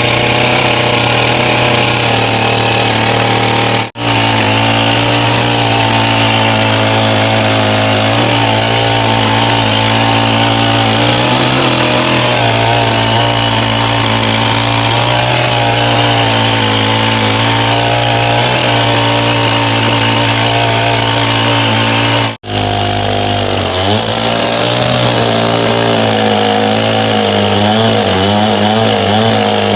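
A big sawmill saw runs loud and steady while cutting through logs. From about two thirds of the way in, its pitch dips and wavers under the load of the cut. The sound cuts out for an instant twice.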